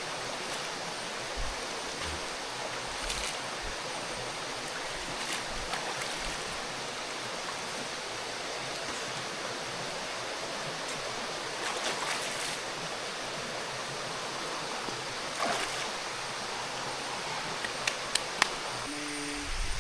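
Steady, even rush of water in the forest, with a few faint clicks and knocks scattered through it.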